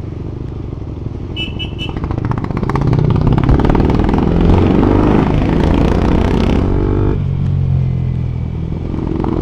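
Motorcycle engine accelerating in second gear, its pitch rising for several seconds, then dropping suddenly about seven seconds in as the rider shifts up into third and pulls on. Three quick high beeps come about a second and a half in.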